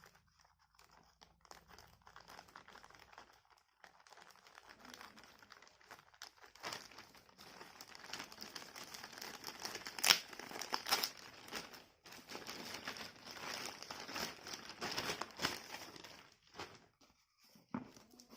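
Shipping packaging being handled and opened by hand: irregular crinkling and crumpling that gets busier partway through, with a couple of sharp, louder noises about ten and eleven seconds in.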